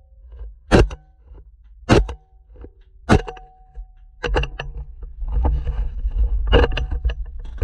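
Three pistol shots about a second and a quarter apart, picked up through a GoPro 7's waterproof case. From about four seconds in comes a denser run of knocks, scrapes and rustling as the camera is handled.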